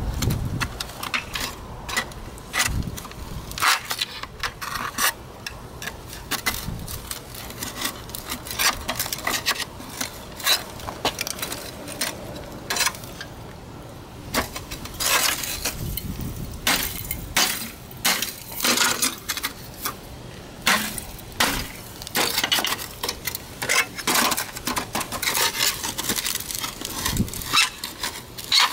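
Metal rod prying and scraping at the cut seam of a sheet-steel scooter muffler, with irregular metallic clinks and scrapes as the end section is worked loose.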